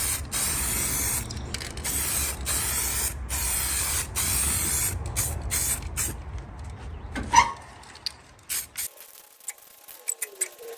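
Aerosol spray paint can hissing in a string of passes with brief pauses, laying a light coat of green paint on a plastic tractor body panel. It stops after about six and a half seconds, and a few light clicks follow.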